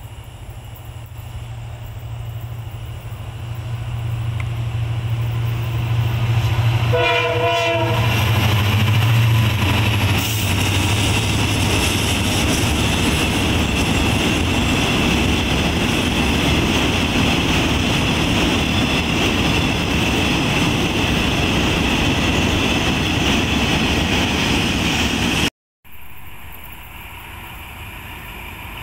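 KTMB Class 25 diesel locomotive hauling the Petronas urea freight train, passing close with its engine running. It sounds a short horn blast about seven seconds in, then the wagons roll by with a long, steady rumble and clatter of wheels on rail. The sound cuts off suddenly near the end, and a second locomotive, running light, is heard more quietly as it approaches.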